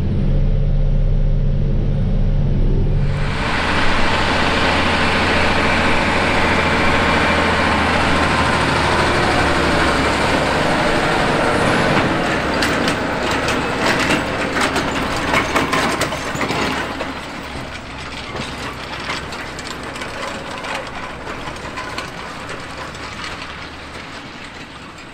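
John Deere 9RX 640 track tractor working in the field. For the first few seconds its engine hums steadily, heard from inside the cab. About three seconds in it switches to the loud outside sound of the tractor pulling a disc vertical-tillage tool and rolling harrow through dry soil, with clattering and rattling from the implement, then slowly fades as the tractor moves away.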